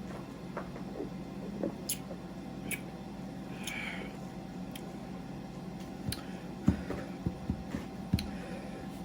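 Someone swallowing carbonated soda in gulps: a few soft low thumps from about six seconds in, with faint clicks over a steady low hum.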